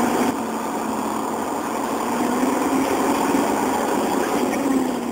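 Truck engine running steadily, its pitch wavering slightly up and down.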